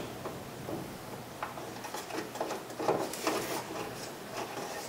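Light metallic clicks and short scrapes as a bolt is fitted by hand into the window regulator inside a car door, with a small cluster of rattles about three seconds in.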